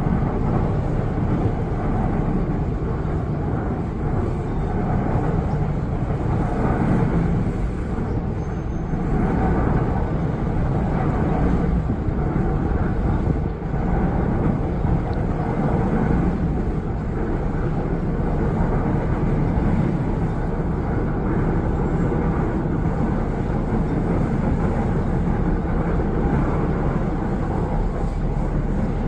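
Steady low rumble of a boat under way, its motor and rushing water running continuously with slow swells in loudness.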